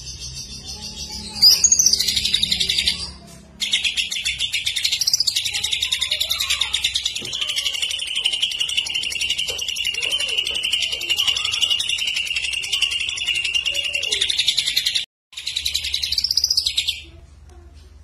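Greater green leafbird (cucak ijo) singing loudly. After a short opening phrase it runs into a long, rapid, unbroken trill of about eleven seconds. The trill breaks briefly, runs on in a shorter burst and stops about a second before the end.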